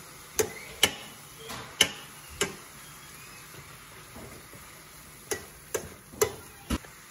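Metal spoon clinking against a stainless steel pan while stirring chopped greens: four sharp clinks in the first two and a half seconds, a pause, then four more near the end.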